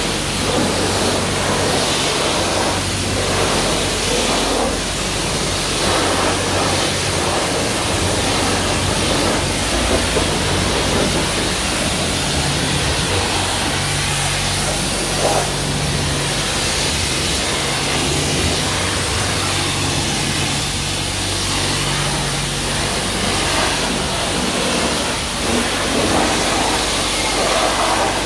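High-pressure washer lance spraying water onto a car's alloy wheels, rinsing off wheel cleaner: a loud, steady hiss of spray, with a low hum coming and going underneath.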